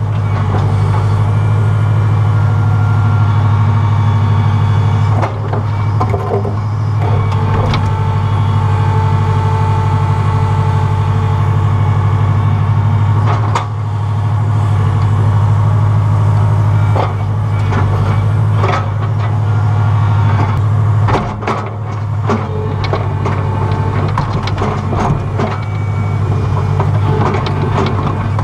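Excavator engine running steadily under digging load, heard from inside the cab, with a higher hydraulic whine for a few seconds about a third of the way in. Sharp clanks and knocks from the bucket working in the dirt, one near the middle and many in the second half.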